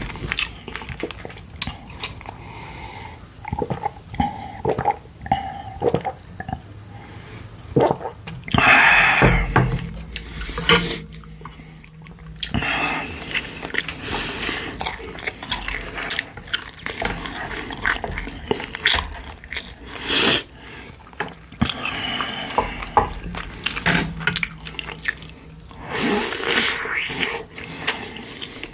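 Close-miked eating sounds over pork-bone soup: wet chewing and slurping of broth, with many sharp clicks throughout and two longer, louder slurps, about nine seconds in and near the end.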